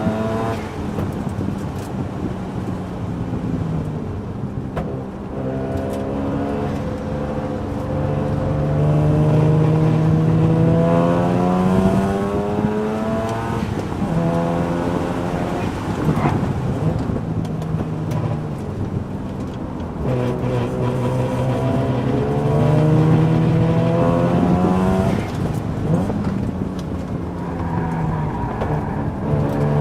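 A car's engine pulled hard around a race circuit, its revs climbing slowly and then dropping sharply several times as it shifts and brakes. Under it runs the abnormal noise that the owner hears returning, still not cured since an earlier track day.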